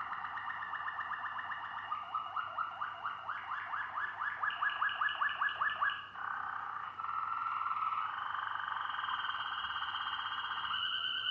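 Malinois Waterslager canary singing. A run of quick rising notes, about five a second, starts about two seconds in, followed by long held whistled tones.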